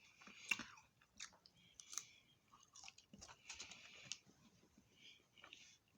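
Faint close-up chewing of fried food: small mouth clicks and bites coming in irregular spells.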